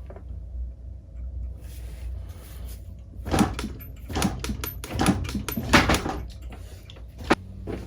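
A run of irregular knocks and clunks, about five of them starting about three seconds in, with a sharp one near the end, as a seized rear wheel, crusted onto its hub with road salt, is worked loose from a Triumph Explorer 1200.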